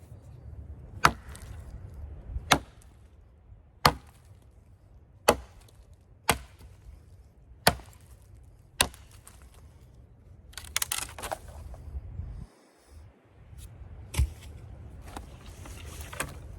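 A Seven Pines Forge Bushcraft Hatchet chopping into wood, sharp strikes coming about every second and a half, with a burst of crackling about eleven seconds in and two more strikes near the end. A steady low rumble runs underneath.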